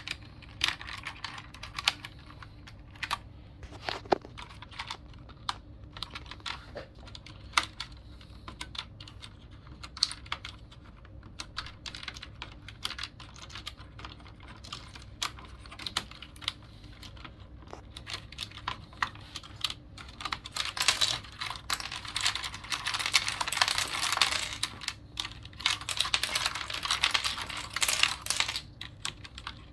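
Logitech G710+ mechanical keyboard being handled: irregular clicks and plastic taps from its keys. Two-thirds of the way through, a few seconds of dense, rapid clatter.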